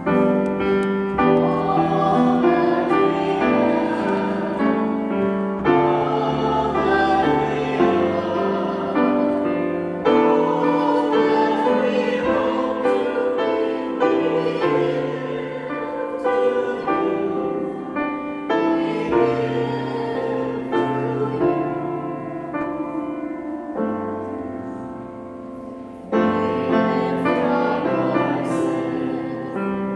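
A grand piano playing a slow hymn-like piece with voices singing over it. The music eases off about three-quarters of the way through, then a new phrase comes in strongly.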